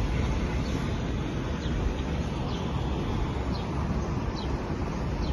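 Strong sandstorm wind rushing through palm trees and buffeting the microphone, a steady noise heaviest in the low end. A few faint short high chirps sound over it.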